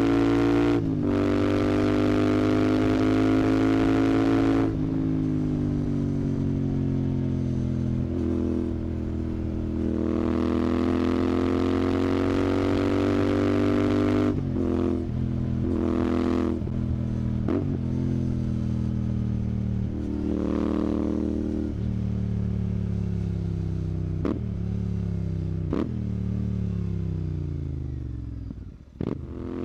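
Royal Enfield Continental GT 650's 648 cc parallel-twin engine running through a Red Rooster aftermarket exhaust under way. It pulls up through the gears with the pitch climbing in long runs, breaking off briefly at each upshift. After some quick throttle gaps and a short rev, it winds down in a long falling note through the downshifts.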